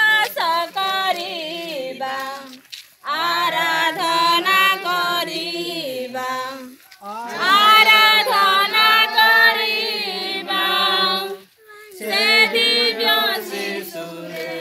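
A group of villagers singing together, in sung phrases of about four seconds with brief pauses between them.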